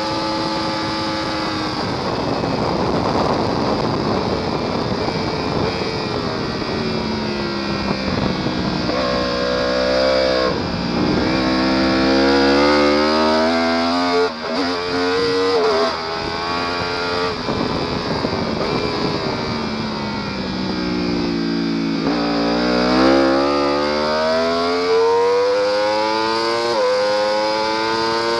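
Sport motorcycle engine heard from on board at speed, with wind noise. The revs fall at first as the bike slows and shifts down, then climb hard through the gears with a short dip at each upshift, building again from low revs near the end.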